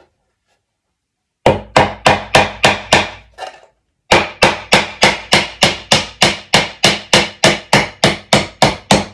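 Claw hammer driving a nail into a wooden birdhouse board: a quick run of about seven blows starting a second and a half in, a short pause, then a steady run of blows at about three or four a second.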